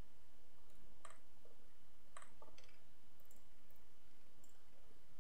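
Computer mouse clicking several times at uneven intervals, the sharpest clicks about a second in and between two and three seconds in, over a steady faint hiss.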